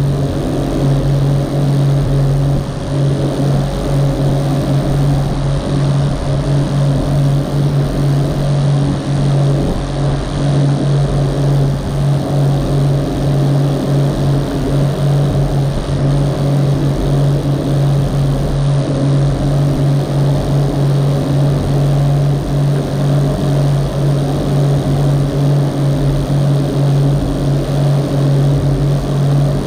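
Rigid inflatable speedboat's engine running at a steady pitch at cruising speed, a constant low drone, with the rush of wake water and wind over it.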